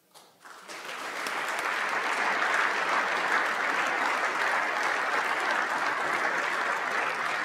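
Legislators applauding. The clapping rises within the first second and then holds steady.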